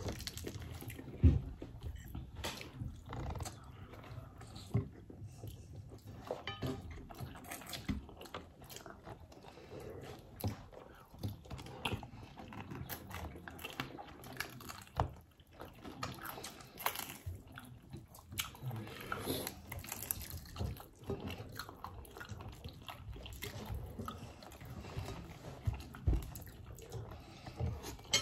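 Crispy fried chicken being eaten: irregular crunchy bites and chewing, with brief crackles scattered throughout.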